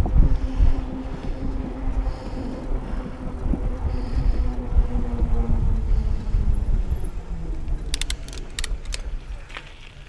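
Mountain bike tyres rolling over a gravel trail, a steady low rumble with wind buffeting the microphone. A quick run of sharp clicks comes about eight to nine seconds in, and the rumble eases toward the end.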